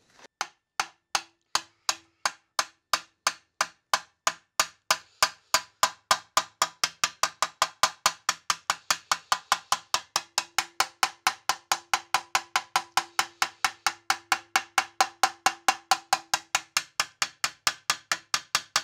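Small peening hammer tapping on a TIG weld in a thin 22-gauge sheet-metal Porsche 356 brake backing plate, cold-forging the weld to stretch the heat-shrunk metal and relieve stress. The even taps start slowly and quicken to about five a second, each with a short metallic ring from the plate.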